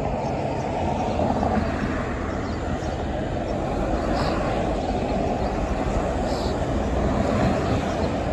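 Steady street traffic dominated by a hybrid-electric city transit bus running as it pulls through an intersection, with a car passing close by near the end.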